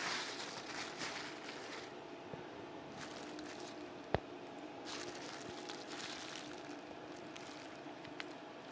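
Faint rustling and handling of packaging as the chips are unpacked, with one sharp click about four seconds in.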